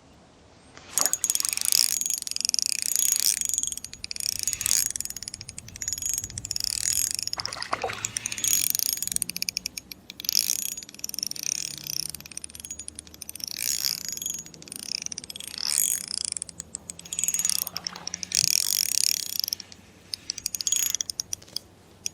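Spinning reel's drag clicking rapidly in about a dozen bursts of a second or two each as a hooked fish pulls line. The reel is a Shimano Soare XR fitted with a felt drag washer and drag grease, which gives a fine, even clicking with no surging.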